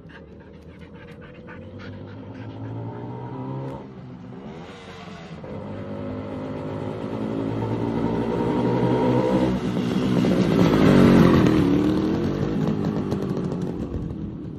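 Motorcycle engine approaching and passing close by: it rises in pitch as it accelerates, drops back briefly about four seconds in, climbs again, is loudest about eleven seconds in as it goes past, then falls in pitch and fades as it moves away.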